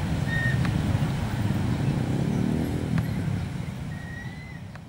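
Steady low engine rumble of vehicles, with one engine briefly revving up in the middle and two short high chirps on top. It fades away toward the end.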